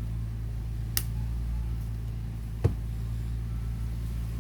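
Steady low hum with two sharp clicks, about a second in and again under two seconds later, as small plastic parts of an Xbox Series X controller are handled while the thumbstick module is closed up.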